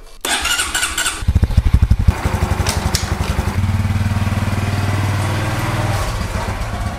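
Small Honda motorcycle started on its electric starter: about a second of starter whirr, then the engine catches with loud, uneven firing pulses. It settles into steady running, and the revs rise as it pulls away, easing off near the end.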